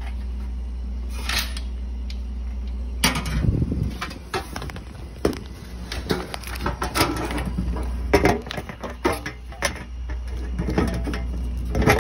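Handling noise of fitting the plastic cover onto a refrigerator line piercing valve: irregular small clicks, knocks and rustles that start about three seconds in, over a steady low hum.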